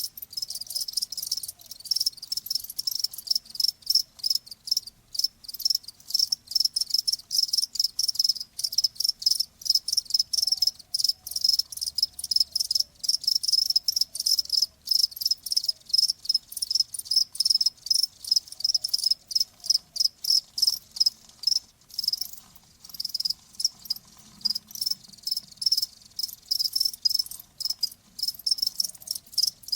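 Crickets chirping: a steady, unbroken run of quick, high-pitched chirps.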